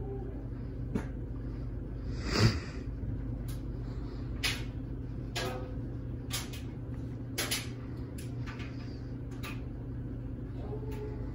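Hampton Bay Littleton 42-inch ceiling fan running with a steady motor hum, with sharp clicks or knocks at irregular intervals. The loudest knock comes about two and a half seconds in.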